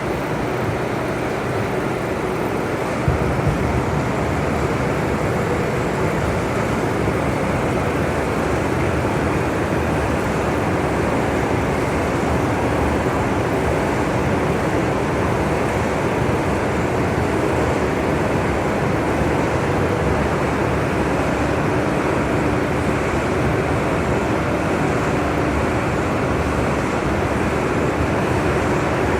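Veneer peeling lathe running, a steady dense mechanical noise with a faint hum. About three seconds in, the low rumble grows louder after a short knock and stays that way.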